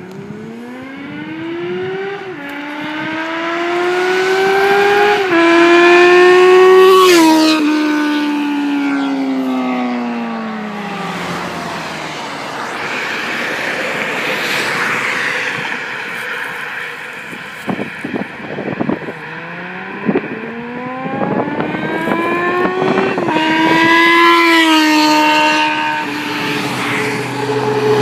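Yamaha XJ6 motorcycle's inline-four with an Atalla aftermarket exhaust accelerating hard through the gears, its pitch climbing and dropping back at each upshift, then falling away as it passes and recedes. A second hard run through the gears comes about twenty seconds in.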